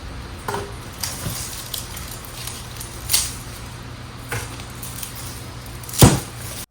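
Garlic stalks being cut off the bulbs: several sharp snips and crunches spread out over a few seconds, the loudest about six seconds in.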